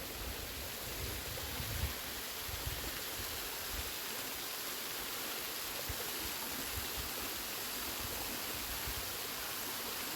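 Steady rush of a small waterfall falling onto the shore, with a few low rumbles in the first couple of seconds.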